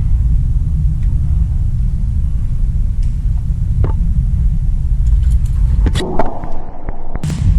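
A steady low rumble, with a few sharp clicks, the loudest clustered about six seconds in.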